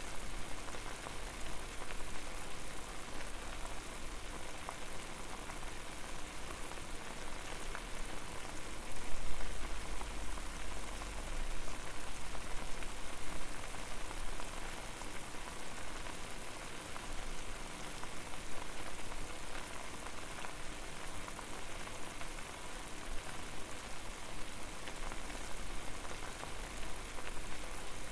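Water at a rolling boil in a pot over a fire: a steady, dense bubbling and popping hiss. A brief louder low rumble swells up about a third of the way in.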